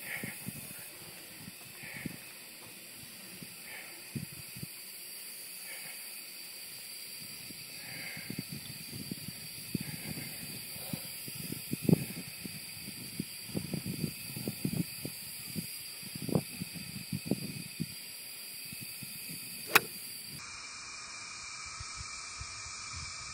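Steady outdoor hiss with soft low thumps of wind or handling on the microphone, and a single sharp click near the end: a golf club striking a ball.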